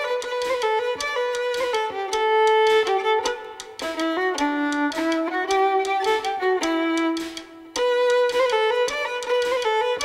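Background music led by a bowed string melody over quick repeated notes, dropping away briefly about seven and a half seconds in.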